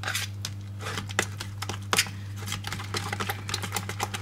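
Spoon stirring a thick mayonnaise sauce in a plastic tub, with quick, irregular clicks and taps of the spoon against the tub over a steady low hum.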